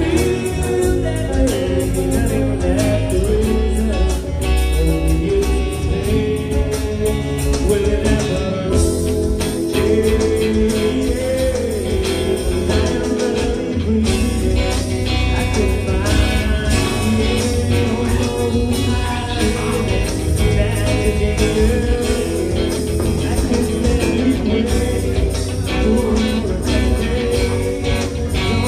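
Live band playing a song: a man singing at the microphone over electric guitars, with a full, steady low end.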